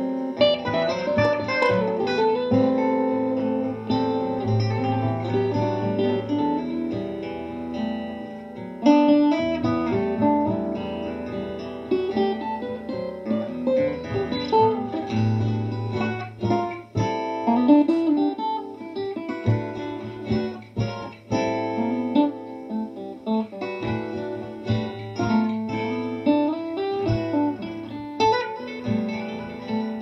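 Solo guitar music: a slow run of plucked notes over held low bass notes.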